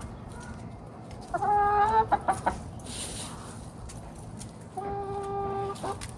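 Backyard hen calling: a drawn-out, steady squawk about a second in, followed by a few short clucks, then a second long squawk near the end.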